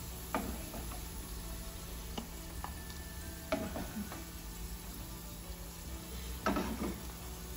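Garlic slices frying and sizzling in hot oil in a pan, with a few short knocks and scrapes of a plastic spoon against the pan as they are scooped out.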